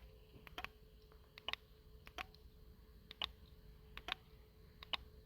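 Small clicks from a remote anti-theft kill switch as its controller is pressed, with the receiver unit answering each press. The clicks are sharp and brief, mostly in close pairs, about one every second, over a faint steady hum.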